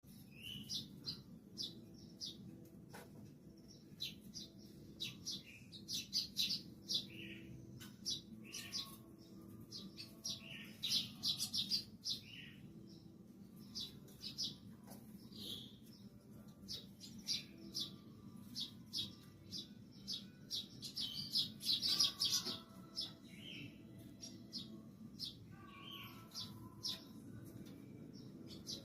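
A flock of Eurasian tree sparrows chirping busily, with short, sharp chirps overlapping almost without a break.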